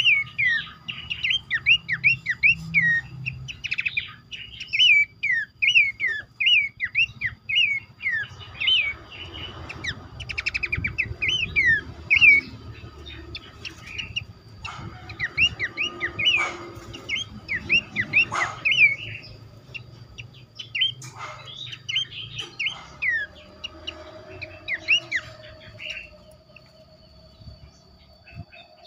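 Pelanduk semak babblers calling in a busy chorus: rapid, sharp, down-slurred whistled notes, several a second and often overlapping, as from several birds at once. A thin steady high whine runs behind them, and a low tone rises slowly near the end.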